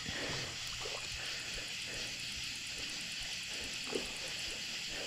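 Steady night chorus of insects with a fast, even ticking high up, broken by a few faint brief sounds and one soft knock about four seconds in.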